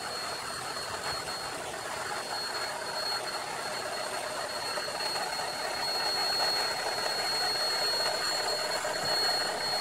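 Cordless drill running steadily with its trigger clamped, spinning a long flexible drive shaft made of plastic-covered spring net-curtain wire: a constant high whine over a dense whirring noise.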